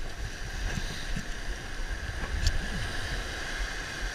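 Wind rumbling on the microphone over the steady hiss of small surf waves washing up the sand.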